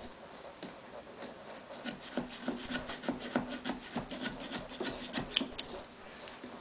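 Small pumpkin-carving saws sawing through the pumpkin's rind in quick scraping strokes, several a second. The sawing starts about two seconds in and stops near the end.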